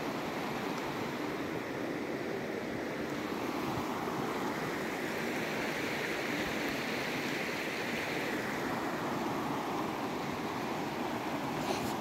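Steady rushing of a shallow mountain river flowing over rocks.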